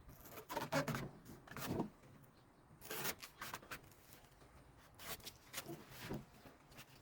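A knife working on a coconut: short bursts of scraping and cutting strokes, coming in three groups with quiet pauses between them.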